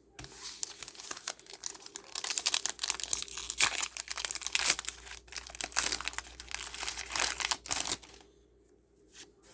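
Pokémon card booster pack wrapper being crinkled and torn open, a dense crackling for about eight seconds that then stops, leaving a few faint clicks.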